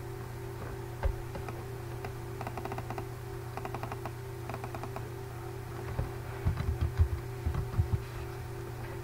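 Typing on a computer keyboard: several short runs of quick key clicks, then a handful of heavier key taps about six to eight seconds in, over a steady electrical hum.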